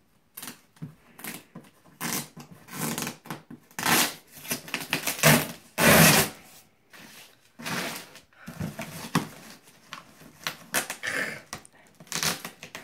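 Plastic garbage bags and duct tape being torn open by hand: irregular rips and crinkles in short bursts with brief pauses between them.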